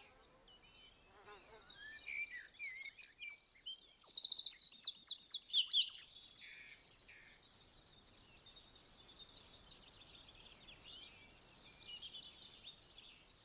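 Several songbirds singing. A loud stretch of rapid, repeated high phrases runs from about two to six seconds in, then a fainter chorus of many birds carries on.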